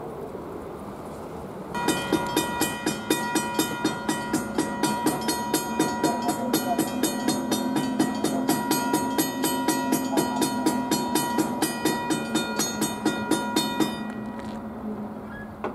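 Railroad grade-crossing warning bell ringing in rapid, evenly spaced strokes, about three to four a second, as a train approaches. It starts about two seconds in and cuts off suddenly about two seconds before the end, as crossing bells do once the gates are down.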